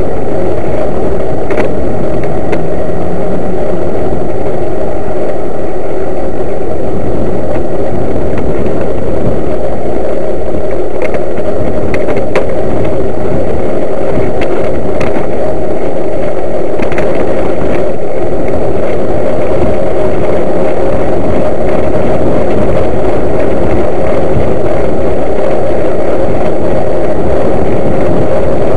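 Loud, constant wind rush on a riding cyclist's camera microphone, with a few sharp knocks.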